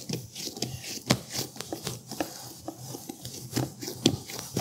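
Hands pressing and patting bread dough flat on a cutting board: soft, irregular pats and slaps, the loudest about a second in and again near the end.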